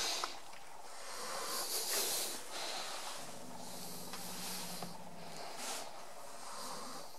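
Kitten hissing defensively at a dog: a few breathy hisses about a second long each, the loudest about two seconds in.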